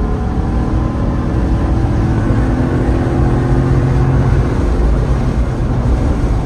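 Ford F-150 Tremor's 5.0 Coyote V8 pulling under throttle with the exhaust cut-out valves open, a loud open-exhaust note with road noise beneath. The engine note strengthens, then eases off about two-thirds of the way through.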